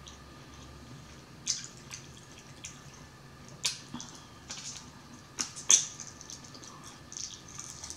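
Close-up mouth sounds of eating a fried chicken drumette: wet chewing and lip smacks, with a few sharp smacking clicks, the loudest a double click about five and a half seconds in.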